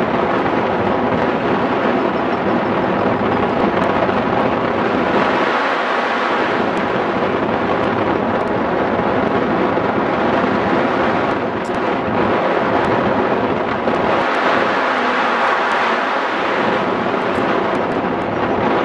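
Wind noise from the airflow rushing over the microphone of a camera mounted on a hang glider in flight: a loud, steady rush that dips slightly a few times.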